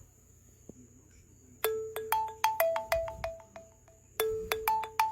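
Alcatel mobile phone ringtone: a quick melodic phrase of about a dozen short, fast-fading notes that starts about one and a half seconds in and begins again about two and a half seconds later.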